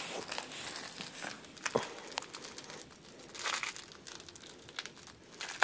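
Puppy playing with a feathered fish-shaped cat toy: scattered light crinkling and rustling with a few short clicks.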